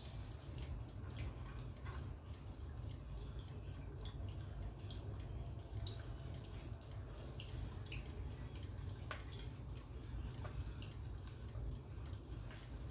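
Water dripping: many small, irregular drips over a steady low rumble, like an ambience recording of a dripping bath or spring.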